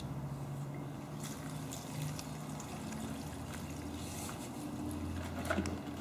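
Gasoline trickling out of a chainsaw's fuel tank through a paint-strainer funnel into a jug as the tank is drained.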